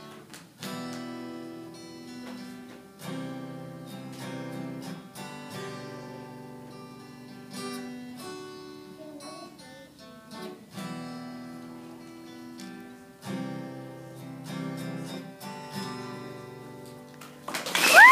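Acoustic guitar strummed live, chords changing about every two seconds with no singing over them. Near the end the audience bursts into loud cheering and whistling.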